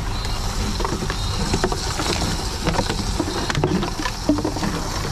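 Reverse vending machine for drink containers running with a steady low hum as plastic bottles are fed into its intake, with scattered clicks and knocks of the bottles being handled and taken in.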